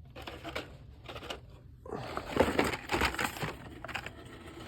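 Carded Hot Wheels cars and their cardboard case being handled: scattered clicks and crinkling of plastic blister packs, getting busier and louder about two seconds in as packs are shuffled and pulled out.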